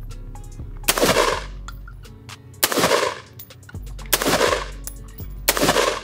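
Four single shots from a short-barrelled AR-15 in slow, aimed fire, about a second and a half apart, each with a ringing echo after it. Background music plays underneath.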